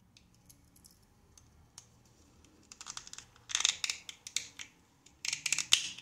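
Metal key blade prying apart the plastic shell of a Toyota key fob: plastic scraping and clicking in several short bursts in the second half, after a few faint ticks.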